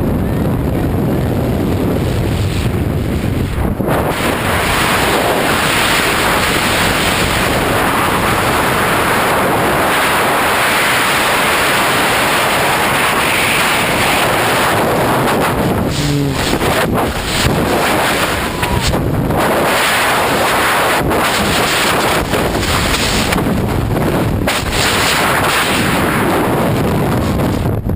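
Loud, steady rush of wind noise over the microphone during a skydive free fall.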